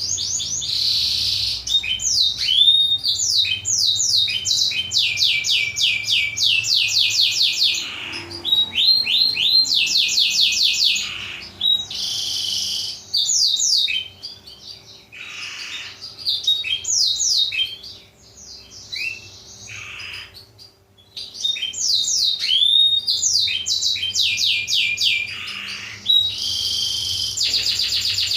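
Blackthroat (black-throated canary) singing: phrase after phrase of fast trills made of repeated sweeping notes, with short pauses between phrases and a quieter, sparser stretch around the middle. A faint steady hum runs underneath.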